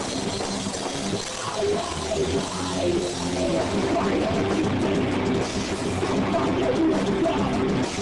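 Live rock band playing loud, with a drum kit and guitar.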